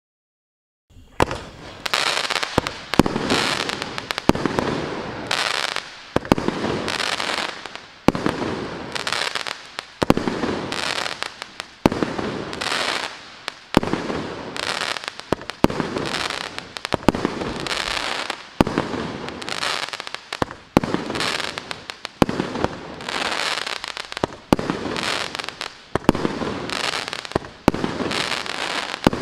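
Maxsem M1253 'Show Time' 30 mm (1.2-inch) 19-shot firework cake firing. After about a second of silence, shots go off one after another, a sharp bang every one to two seconds, each trailing off in a fading hiss.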